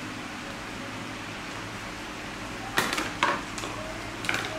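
A few sharp knocks and clatters of hard objects on a tiled floor, a quick cluster about three seconds in and another near the end, over a steady background hum.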